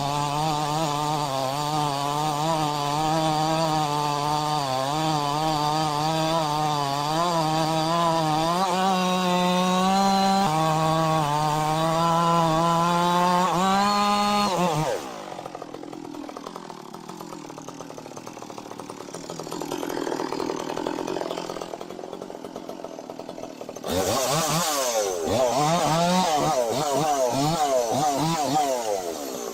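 Two-stroke chainsaw cutting wood under load, its engine pitch wavering, with brief revs up. About halfway through it cuts off suddenly to a quieter stretch. Near the end a chainsaw comes back loud, revving up and down quickly.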